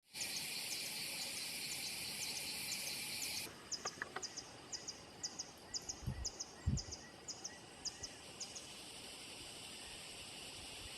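Outdoor nature ambience: a dense, high insect drone that cuts off abruptly about three and a half seconds in, over a string of short high chirps repeating about two to three times a second that stop past the middle. Two brief low thuds sound near the middle.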